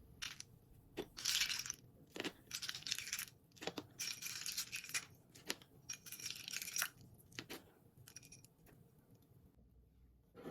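Kitchen cleaning handling sounds: a run of sharp clicks and knocks mixed with short bursts of crinkly rustling, dying away after about seven seconds.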